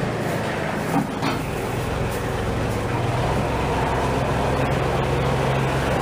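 Small tractor's engine running steadily while it manoeuvres, with a brief knock about a second in.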